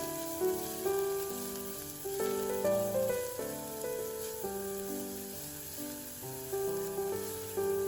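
Background instrumental music, a melody of held notes, over a steady sizzle of food frying in a pan.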